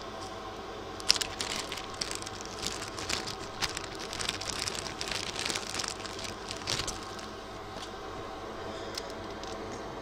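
Rustling, crinkling and light clicks of things being handled on a workbench, a dense run from about a second in until about seven seconds in, over a steady background hum.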